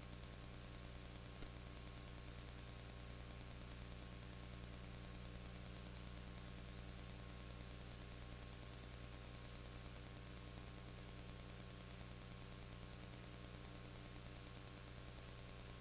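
Steady low electrical hum under a layer of even hiss, the noise floor of an old videotape recording; no game sound can be made out.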